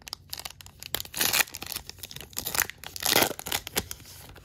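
A foil trading-card pack wrapper being torn open and crinkled by hand, in a series of rips, the loudest about a second in and again about three seconds in.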